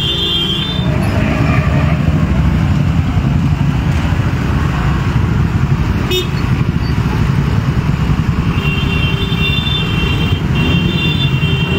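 A group of motorcycles and scooters riding slowly together, their engines rumbling steadily, with vehicle horns sounding briefly at the start and again for about two seconds near the end.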